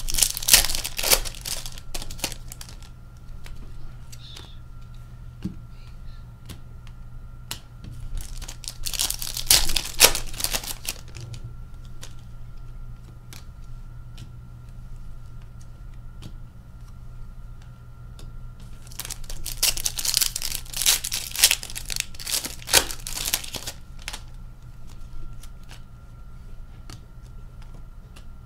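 2020-21 Synergy hockey card pack wrappers being torn open and crinkled by hand, in three bursts of crackling about ten seconds apart.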